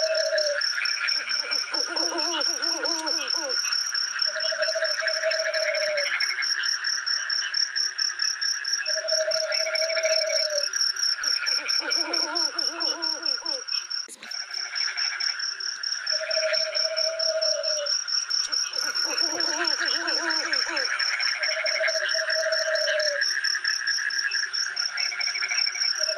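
Night forest chorus of insects and frogs. Insects trill steadily in a high, rapidly pulsing tone. Frogs call over them: a repeated short note every few seconds, and bursts of several croaking calls about every eight seconds. There is a brief dip about fourteen seconds in.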